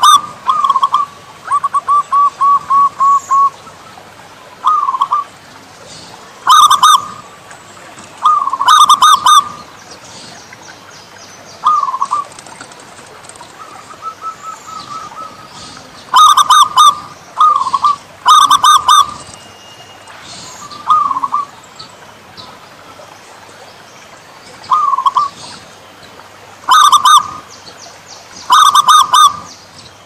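Zebra doves (perkutut) cooing in repeated short phrases of rolling, bubbling coos, one phrase every one to four seconds, with a quick run of about seven even notes near the start. Higher, thinner chirps sound alongside several of the phrases.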